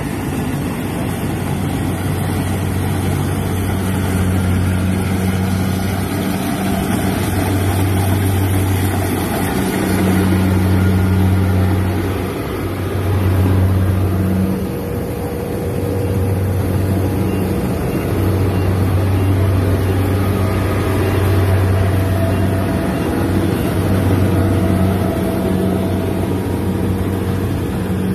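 Rice combine harvester running as it cuts and threshes standing rice: a steady engine hum that swells and fades repeatedly, over a constant hiss of the machinery.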